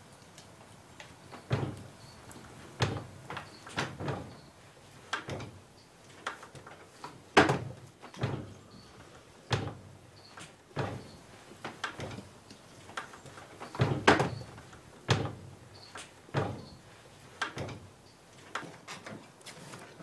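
A series of irregular sharp knocks and cracks, roughly one a second, two of them much louder than the rest.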